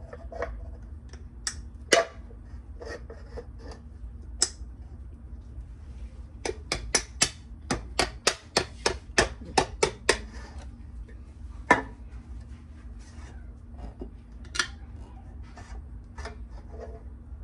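Kitchen utensils clicking and knocking against cookware, with a quick, even run of about four clicks a second in the middle, over a faint steady hum.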